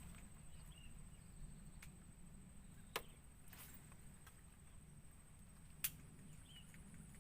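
Two sharp clicks about three seconds apart from a baitcasting reel being handled, over a faint low hum.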